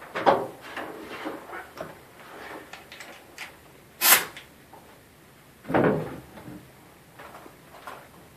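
Scattered knocks and clunks of a carpenter handling a nail gun and framing lumber, with one sharp, loud snap about four seconds in.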